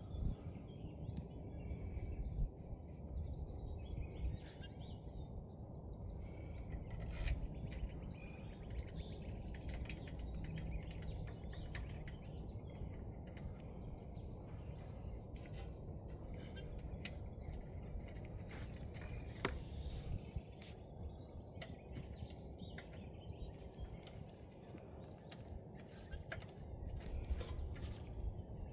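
Faint small clicks and taps of screws being started by hand into a UV unit's housing. Birds chirp in the background over a low steady rumble.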